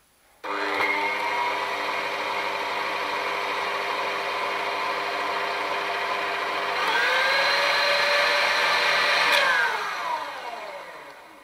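KitchenAid 5KPM5 bowl-lift stand mixer's brushed motor and gear drive, whisk fitted, starting about half a second in and spinning up, running steadily, then stepped up to a higher speed about seven seconds in. About nine and a half seconds in it is switched off and winds down with falling pitch. This is the test run after the mixer's stripped drive gear was replaced.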